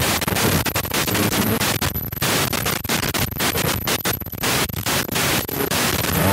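Radio transmission distortion: loud static hiss that keeps cutting out in quick, irregular dropouts.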